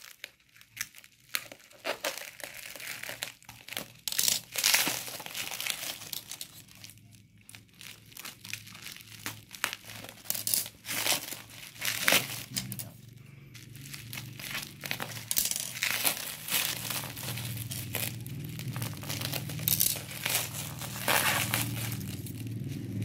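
Bubble wrap and plastic packing crinkling and rustling in irregular bursts as a long parcel is cut and peeled open by hand, with some tearing of packing tape. A low steady hum comes in during the second half.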